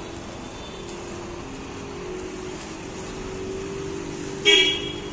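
NueGo electric sleeper bus moving slowly past, a steady hum with road noise that rises slightly in pitch. A short, loud vehicle horn honk sounds about four and a half seconds in.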